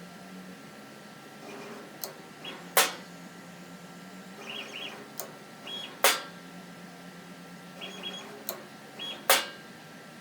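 A 6 V solenoid on a CNC table's pen holder clacking the Sharpie down and up, a loud clack about every three seconds, each after a softer click. The table's stepper motors make short whirring chirps between the clacks, and a low hum switches on and off.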